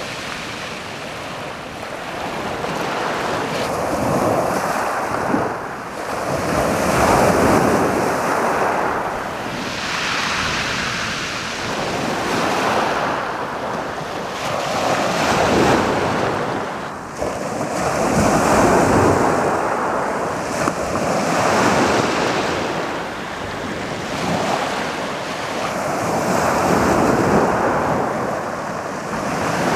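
Waves of a slightly stormy sea breaking and rolling up on a pebble beach, swelling and falling back every few seconds, with wind buffeting the microphone.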